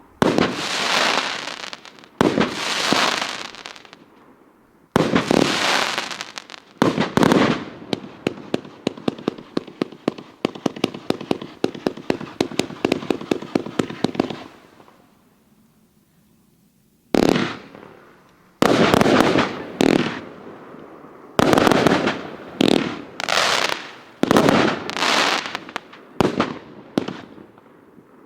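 A 146-shot Outstanding Fireworks "Ignition" firework cake firing. Shots launch and burst with fading crackling tails. About a quarter of the way in, a rapid string of sharp pops comes several a second for about seven seconds and dies away. After a short lull, overlapping bursts start again.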